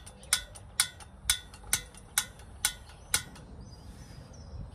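The piezo igniter of a Campingaz Party Grill 200 gas stove clicking seven times, about two clicks a second, as the burner is being lit; the clicks stop after about three seconds.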